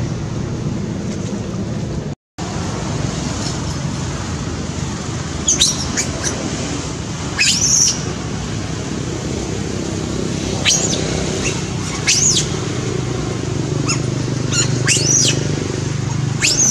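Short, sharp, high-pitched chirping calls in small clusters every second or two, over a steady low background rumble.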